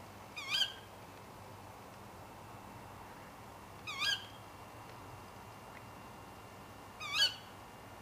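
Female tawny owl giving three short, sharp ke-wick contact calls, about three to four seconds apart.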